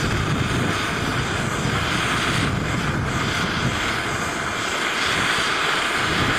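Handheld gas torch flame blowing with a steady hiss onto a lithium-polymer pouch cell that is burning under it.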